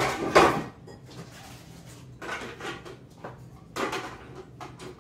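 Plastic knocks and clatter of a food processor's lid and feed-tube pusher being handled and fitted into place, with a sharp knock about half a second in and more clattering later on. The motor is not running yet.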